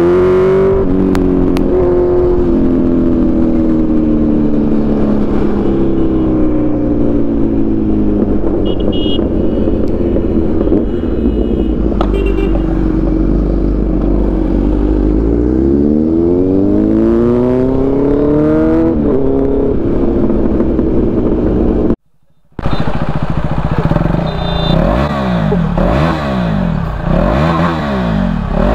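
Motorcycle engine heard from the rider's seat: the revs fall steadily as the bike slows, then climb again as it accelerates about halfway through, with wind rumbling on the microphone. After a sudden brief dropout, engines are blipped up and down repeatedly with the bikes stopped.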